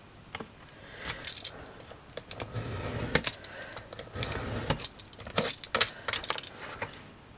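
Craft knife cutting strips of grey card along a steel ruler: a run of scratchy cutting strokes mixed with sharp clicks and ticks of metal on metal.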